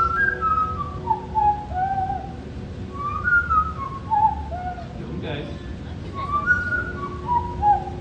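Yellow-naped Amazon parrot whistling into a handheld microphone over a sound system: three phrases of clear, gliding notes, each phrase stepping down in pitch.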